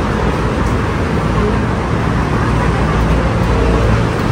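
Steady, continuous noise of busy city road traffic, a low rumble of many passing cars and buses.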